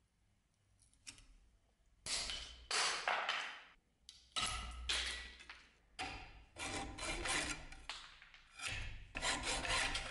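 Hacksaw sawing through the metal handle pins on a rusty cleaver's tang, in rasping back-and-forth strokes that start about two seconds in.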